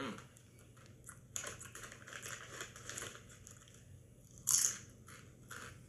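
Kettle-cooked potato chips being eaten: crunching and crackling from about a second and a half in, then one short, loud crunch of a bite a little after four seconds in.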